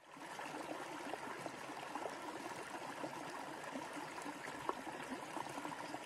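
Shallow rocky creek running: a steady sound of flowing water with small splashes.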